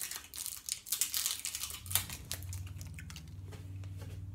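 A hard-candy wrapper crinkling and tearing as the candy is unwrapped by hand, a dense crackle that dies away about two seconds in. A low steady hum follows.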